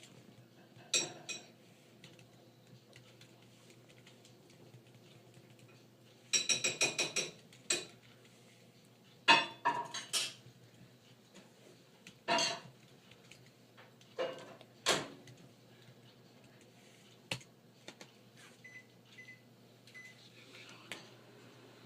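Scattered short clinks and clatters of hard objects being handled, a few with a brief ring. The busiest stretch is a quick run of them about six seconds in, and there are single knocks near ten, twelve and fifteen seconds in.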